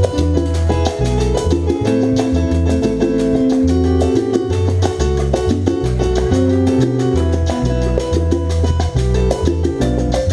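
A live salsa band plays through the hall's sound system, with a stepping bass line, held keyboard and horn notes, and busy percussion including timbales.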